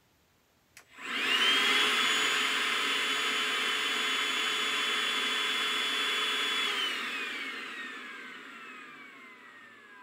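Milwaukee M18 compact handheld vacuum switched on with a click about a second in. Its small fan motor quickly spins up to a steady, loud, high-pitched whine over rushing air. After about six seconds it is switched off and winds down, the whine sliding slowly lower in pitch as it fades.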